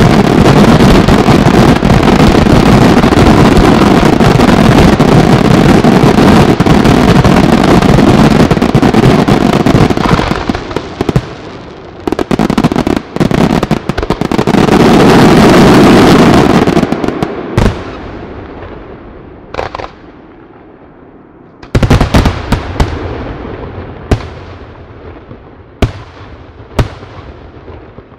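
Aerial fireworks display: a dense, continuous barrage of shell bursts and crackling for about ten seconds, a second dense flurry a few seconds later, then about six separate loud bangs, each trailing off in a long echo, until it fades out.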